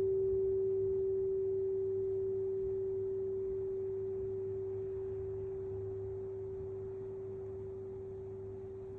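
A single pure tone at one steady pitch, ringing on and slowly fading away.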